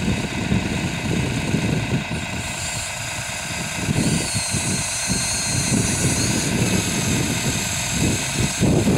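Electric motors of a radio-controlled excavator whining as its boom and bucket move, over a steady low rumble; the high whine is strongest from about two seconds in until past the middle.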